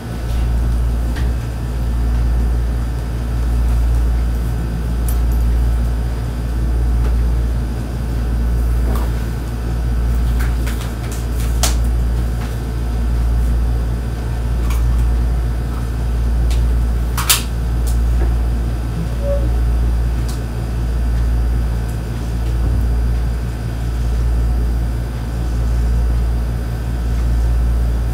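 A steady low mechanical hum, like a fan or air-conditioner, swelling and fading about every two seconds, with a few light clicks and knocks, the sharpest a little past halfway.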